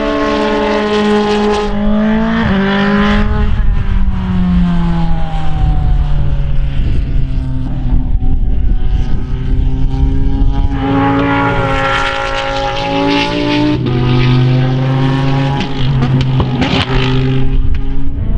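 Formula Renault 2.0 single-seater's four-cylinder racing engine at speed on track. The note drops in quick steps about two seconds in, then falls away in a long glide. It climbs again about halfway through and holds high toward the end.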